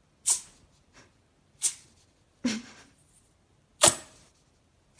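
Four sharp clicks at uneven intervals, plus a fainter one about a second in. Each dies away quickly, with silence between them.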